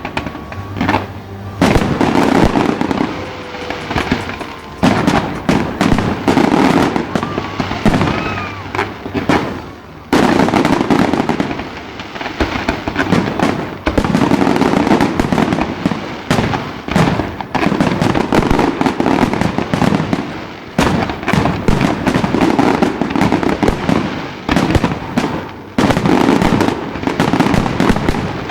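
Fireworks display: a rapid, near-continuous barrage of bangs and crackles, with a few brief lulls in between.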